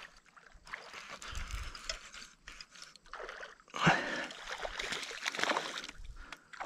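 Water splashing at the pond surface as a largemouth bass swipes at the lure and thrashes on the line, with the sharpest, loudest splash about four seconds in.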